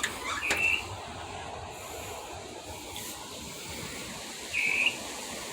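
An unidentified night-calling bird gives a short, fairly high call twice, about four seconds apart, over a steady background hiss.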